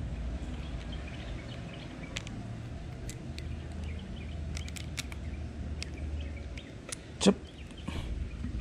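Light clicks and taps of small reel parts being handled and fitted onto a spinning reel's spool shaft, over a steady low rumble, with one louder knock about seven seconds in.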